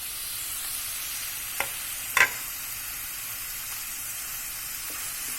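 Chicken, bell pepper and onions sizzling in oil as they are stir-fried in a pan, with a utensil knocking against the pan twice, about a second and a half and two seconds in.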